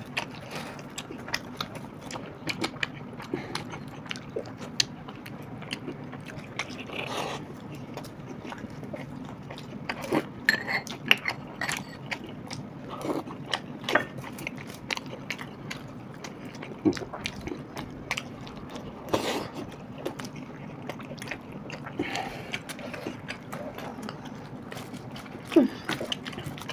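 Eating sounds from two people eating paratha and potato curry by hand: chewing and wet mouth clicks, with flatbread being torn and occasional light taps, irregular throughout, over a steady low hum.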